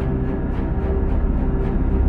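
Background music: sustained low notes under a steady beat of about three ticks a second.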